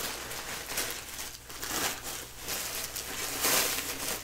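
Plastic-backed disposable diaper crinkling and rustling as hands handle and smooth it, with a louder rustle near the end.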